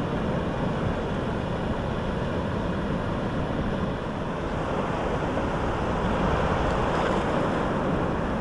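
Small ocean waves washing in over sand and flat rock at the water's edge, a steady rush of surf, with wind buffeting the microphone.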